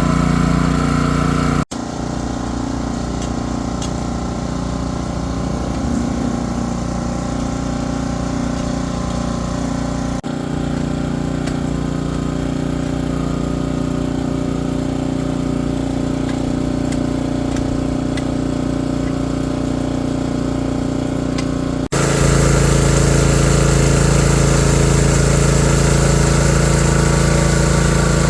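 Engine-driven machinery running steadily, across several shots cut together. The sound changes abruptly about 2, 10 and 22 seconds in, and is loudest in the last part.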